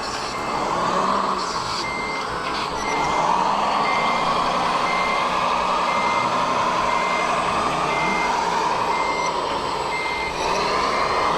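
Reversing beeper on a radio-controlled model truck, a steady high beep repeating about one and a half times a second from about two seconds in, over the steady drone of the model's motor.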